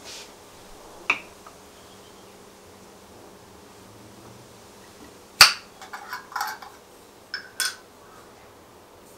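Glassware and a glass juice bottle handled on a kitchen counter: one light click about a second in, a sharp clink about five seconds in, then a run of lighter clicks and rattles as the bottle's metal screw cap is twisted off and set down.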